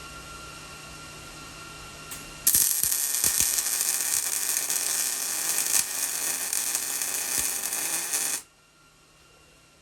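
MIG welder arc crackling and sizzling as a weld bead is laid on steel tubing, starting abruptly about two and a half seconds in, running steadily for about six seconds, and cutting off sharply when the trigger is released. Before it, a low steady hum.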